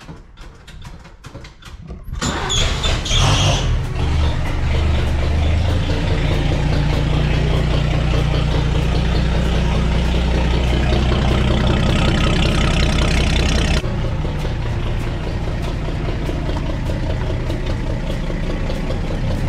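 1941 Chevrolet 3/4-ton truck's engine turned over by the starter, catching about two seconds in with a short burst of revs. It then runs loud and unmuffled through its vertical exhaust stack, steady and rough, dropping a little in level about fourteen seconds in as the truck rolls out.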